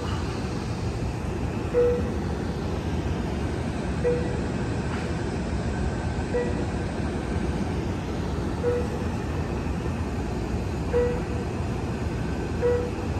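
Amtrak Capitol Corridor train standing at the platform with a steady low rumble, and a short, clear beep repeating about every two seconds.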